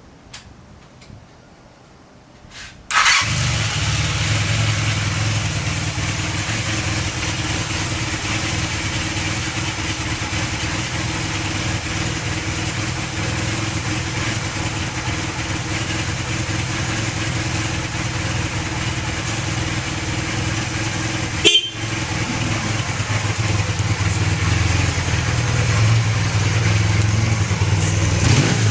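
Honda CB450N parallel-twin motorcycle engine started on the electric starter, catching at once about three seconds in, then idling steadily with no abnormal noise. One brief sharp click about three-quarters of the way through.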